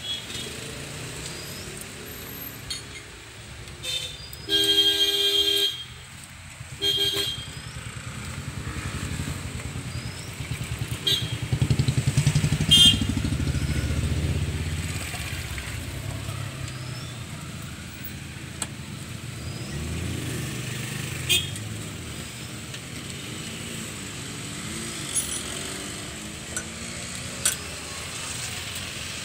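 A vehicle horn sounds, a long toot about four and a half seconds in and a short one a second later. Then a motor vehicle engine rumbles past, swelling and fading, with a few sharp clicks and knocks near the end.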